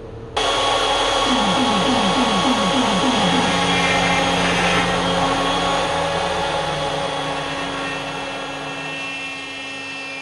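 ShopBot CNC router cutting plywood: the spindle motor's whine and cutting noise start suddenly about half a second in. Between about one and three and a half seconds in, a run of about eight short rising whines comes from the machine's gantry moves, then the noise settles to a steady whine and eases slightly toward the end.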